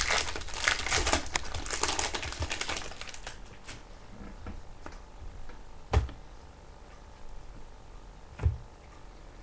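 Clear plastic wrapper of a trading card pack crinkling as it is opened and pulled off the cards, for about three seconds. Then quieter handling of the cards, with two sharp knocks about six and eight and a half seconds in.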